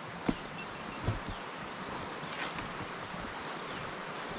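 Forest insects chirping in quick, high, repeated pulses over a steady hiss, with two soft thumps about a second apart.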